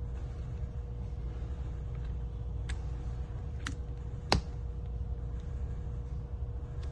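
Three small sharp clicks, the loudest about four seconds in, over a steady low hum: phone flex-cable and battery connectors being pressed onto the board.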